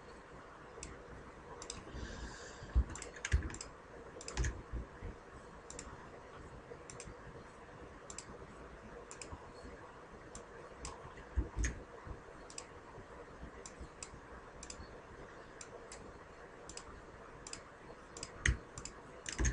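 Computer mouse clicking at irregular intervals, quiet single clicks with a few louder knocks among them.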